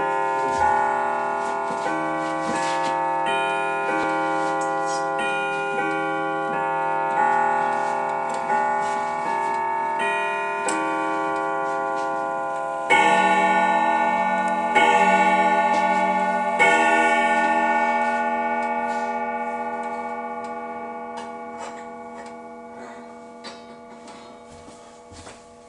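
Grandfather clock striking three o'clock: a chime melody of ringing notes for about thirteen seconds, then three deeper, louder hour strikes about two seconds apart. The notes ring on and fade slowly while the pendulum movement ticks underneath.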